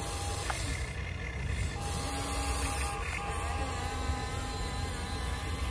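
Huina 1593 RC excavator's small electric motors whining, switching on and off as it works, over a steady low hum.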